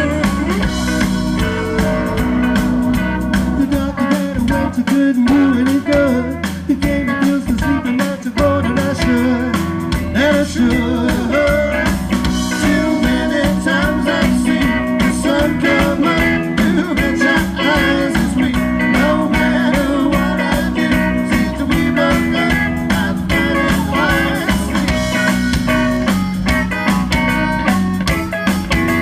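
Rock band playing live at a sound check: a blues-tinged number with guitars and a steady drum beat.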